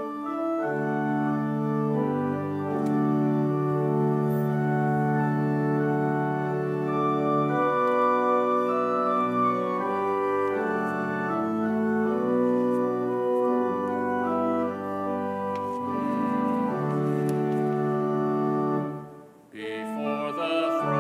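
Church organ playing a hymn introduction in slow, held chords. After a brief break near the end, singing of the hymn begins over the organ.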